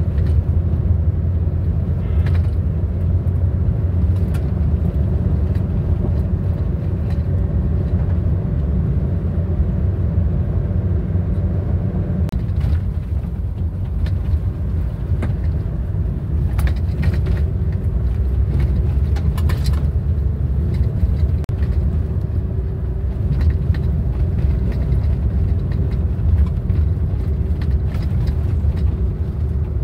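Steady low rumble of a car driving on an unpaved gravel road, heard from inside the cabin: engine and tyre noise with a faint steady hum, and occasional sharp ticks.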